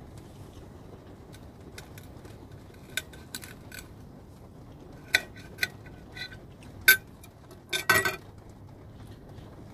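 Steel kitchen knife clinking and scraping on a ceramic plate while a slice of pizza is cut, a few scattered sharp clinks, with a louder clatter about eight seconds in as the knife is laid down on the plate.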